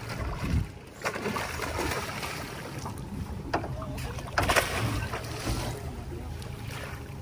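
Water splashing as a hooked barramundi thrashes at the surface beside the boat and a landing net is pushed into the water after it. There are several splashes, the loudest about four and a half seconds in, over a low steady hum.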